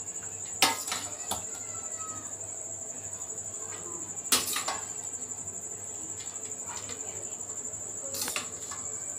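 A metal spoon knocks against an aluminium cooking pot four times while cooked rice is spooned in, the loudest knock a little past the middle. Underneath runs a cricket's steady, high, pulsing chirr.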